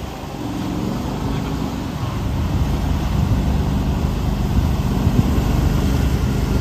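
Argo 8x8 amphibious ATV's engine running steadily as it drives through river water, its spinning wheels churning up spray. The sound grows louder as the vehicle comes closer.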